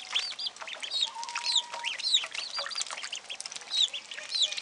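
Ducklings and chicks peeping: many short, high, falling peeps overlapping several times a second, with one lower held note about a second in lasting nearly a second. The young ducklings are frightened by their first swim.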